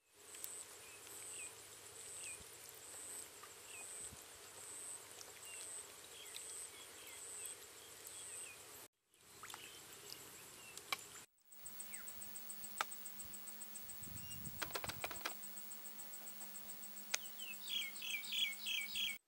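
Outdoor insect and bird sound: a high, steadily pulsing insect trill with scattered short bird chirps. The sound cuts out briefly twice, a low steady hum comes in after the second cut, and near the end a bird sings a quick run of repeated notes.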